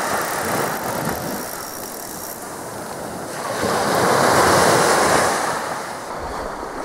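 Small waves breaking and washing up a sandy beach, a steady rush of surf that swells loudest about four to five seconds in as a wave comes ashore.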